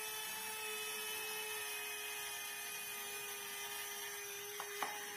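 Two small electric cooling fans in the radiator section of a handmade model diesel locomotive, running with a steady, even whine. A couple of faint ticks come near the end.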